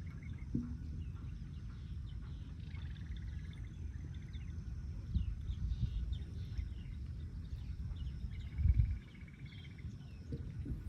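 Birds chirping, with two short buzzy trills, over a steady low rumble; a dull thump about three-quarters of the way through.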